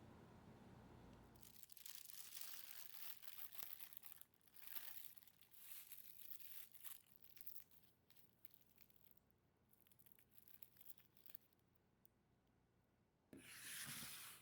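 Faint rustling and crinkling of a crinkly material being handled, in irregular bursts for the first several seconds and again briefly near the end.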